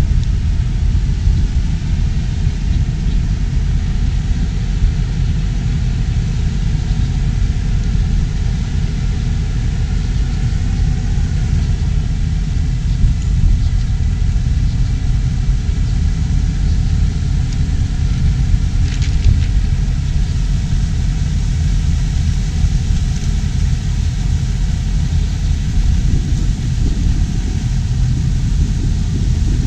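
Loud, uneven low rumble all the way through, typical of wind on the microphone. Beneath it a New Holland T4 110 tractor's engine comes through as a faint hum from about halfway, and a hiss of water churning around its tyres grows near the end as it wades closer through the pond.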